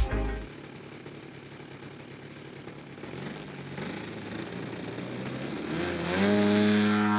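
Radio-controlled model aircraft engine running, growing louder, then rising in pitch about six seconds in and holding a steady, louder note.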